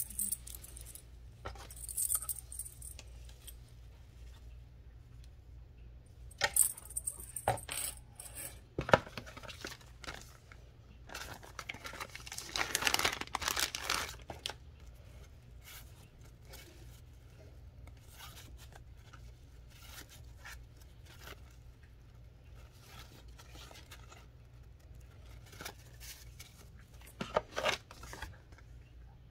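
Clear plastic packaging crinkling and rustling in bursts as items are unwrapped by hand. The longest stretch comes about halfway through, with a few sharp clicks and light knocks between quieter pauses.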